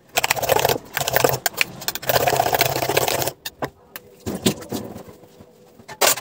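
A metal spoon beating eggs in a steel bowl: rapid clattering and scraping for about three seconds, then a few separate clicks and knocks, the sharpest near the end.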